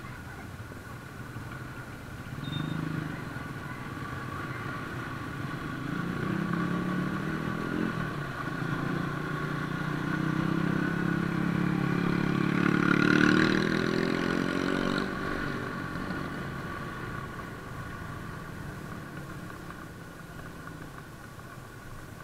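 Motorcycle engines of a group ride. The nearest engine pulls harder and rises in pitch, loudest about two-thirds of the way in, then eases off and fades.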